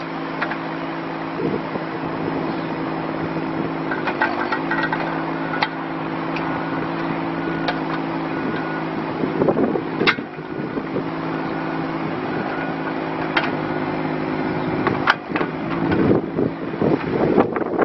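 Kubota K008-3 mini excavator's three-cylinder diesel engine running steadily while the boom, arm and bucket are worked, its note dipping briefly about four seconds in. A few sharp knocks are heard along the way.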